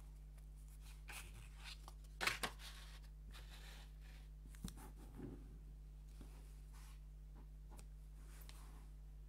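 Wooden puzzle pieces being handled: scattered light clicks, taps and rustles. The loudest is a pair of sharp clicks a little over two seconds in, with another click near the middle.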